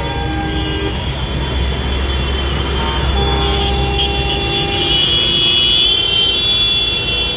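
A convoy of farm tractors driving past, their diesel engines running steadily, with a vehicle horn held for about a second near the middle.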